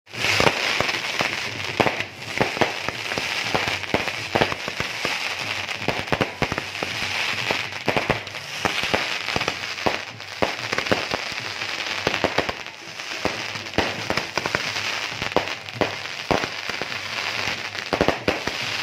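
Fireworks going off: a continuous crackle with many sharp bangs and pops, as shells burst in the air.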